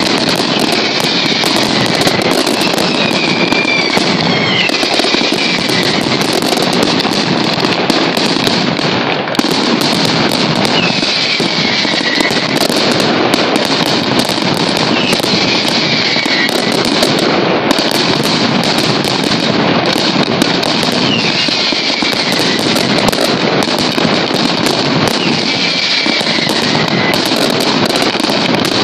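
Mascletà firecrackers strung on overhead lines detonating in a dense, continuous barrage of sharp bangs and crackling, with short falling whistles every few seconds.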